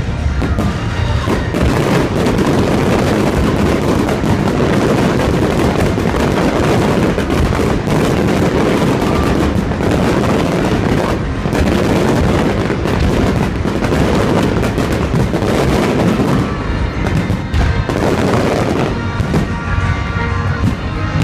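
Aerial firework shells bursting overhead in a rapid, unbroken barrage of bangs and crackle, with music playing underneath.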